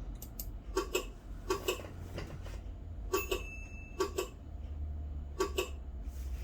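About five pairs of light knocks at uneven intervals, roughly a second apart, over a low steady hum.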